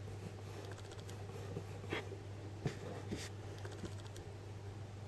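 Faint handling noise of fingers on a Play-Doh pumpkin and the tabletop: soft rubbing with a few small clicks around the middle, as a thin vine is picked up and pressed on. A steady low hum runs underneath.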